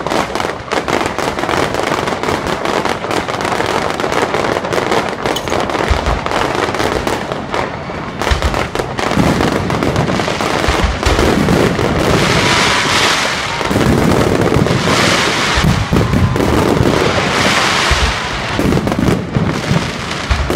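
Aerial fireworks going off: a dense, rapid crackling and popping, with deep booms every couple of seconds. From about halfway come repeated surges of loud hissing crackle.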